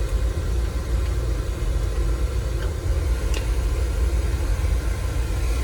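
Oil furnace burner firing steadily with a continuous low rumble, its combustion air freshly adjusted.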